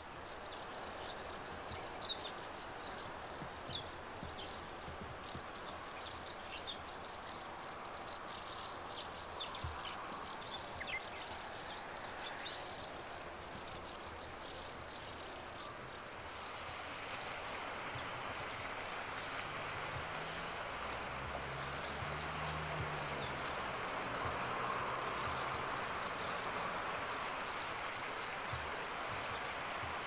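Small birds chirping, many short high calls one after another, over a steady rushing background that grows fuller about halfway through. A low hum comes in during the second half.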